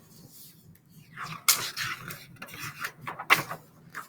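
Paper rustling and rubbing as a picture book's pages are handled and turned, with two sharper rustles about a second and a half in and again a little before the end.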